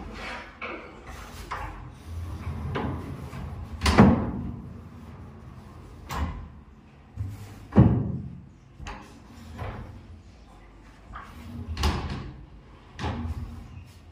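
Plywood sliding wardrobe doors pushed back and forth on a newly fitted sliding channel track: low rolling rumbles, each ending in a sharp knock as a door stops. There are about five knocks, the loudest about four and eight seconds in.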